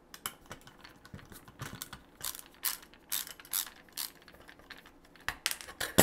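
A screwdriver backing out the side screw of a gangable metal switch box: irregular small metallic clicks and scrapes, with a louder clatter near the end as the tool and the box are set down on the bench.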